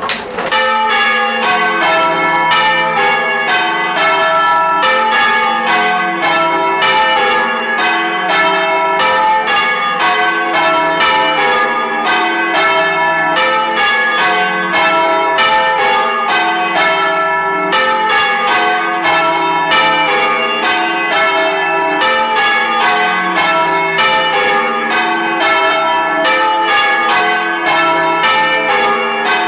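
A ring of four heavy church bells rung full-circle in change-ringing style, struck one after another in a steady, even stream, each stroke ringing on under the next.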